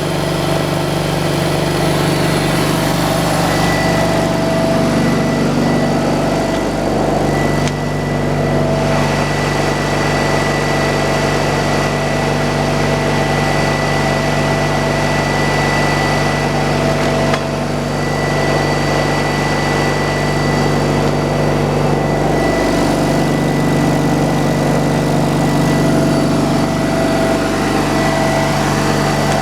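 Sawmill engine running steadily under a constant load, its note shifting slightly a couple of times.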